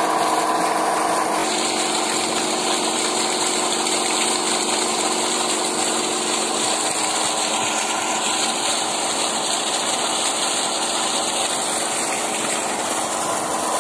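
Irrigation tubewell pump running steadily, its outlet pipe pouring a heavy stream of water that splashes and rushes into a field channel.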